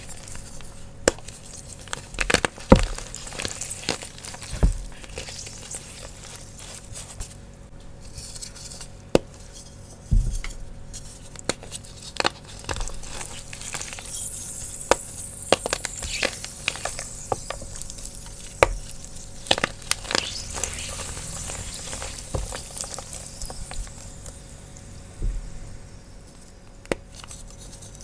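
Fresh blocks of Sports Chalk gym chalk being crushed and snapped by hand, giving repeated sharp crunches and cracks. The wet chalk fizzes with a hissing sizzle as it meets water, most plainly through the middle stretch.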